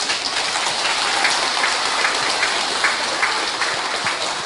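Audience clapping: a dense, steady patter of many hands applauding.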